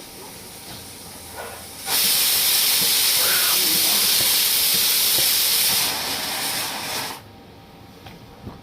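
Pressure cooker venting steam through its whistle: a loud hiss that starts suddenly about two seconds in, eases a little near the end and cuts off abruptly after about five seconds.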